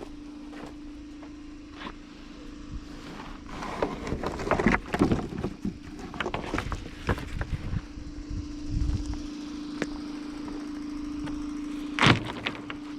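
A homemade sawmill's small engine running steadily, with a run of knocks and clatters in the middle and one loud knock near the end.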